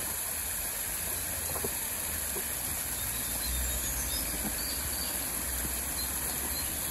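Small waterfall splashing steadily over a stone ledge into a creek pool, with a few faint, short bird chirps above it.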